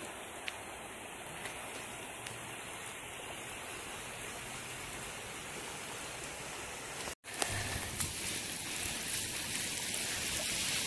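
Steady rushing of a swollen, muddy river in flood. After a brief cut about seven seconds in, the rush is louder and hissier as shallow floodwater runs close by over grass.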